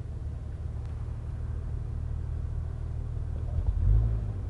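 1996 Jeep Grand Cherokee's 4.0-litre inline-six engine running with a steady low hum, with a brief louder low surge near the end.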